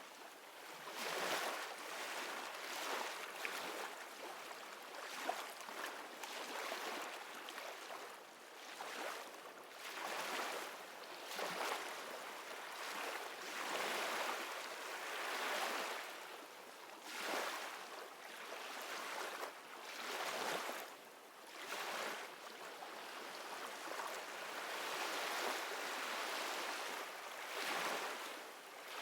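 Ocean waves washing in and drawing back: a steady rush of noise that swells and fades irregularly every second or two, with no music.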